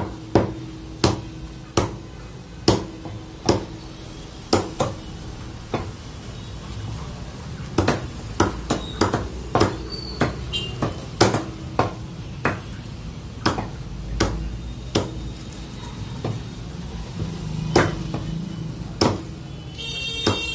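Steel meat cleaver chopping chicken pieces on a thick wooden chopping block: sharp, irregular knocks, about one a second at first, then a quicker run in the middle. A short high electronic tone sounds near the end.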